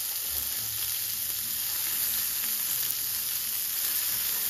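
Pork belly, kimchi and garlic sizzling on a hot tabletop grill plate: a steady frying hiss.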